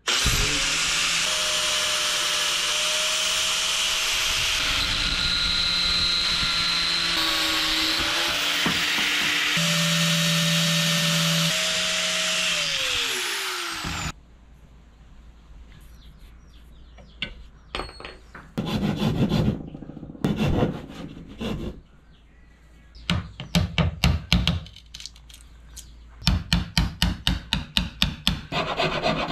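DeWalt angle grinder running for about fourteen seconds, its pitch shifting with the work, then winding down. After that comes a chisel struck with a mallet into the wooden speargun stock, in bursts of quick blows that come thickest near the end.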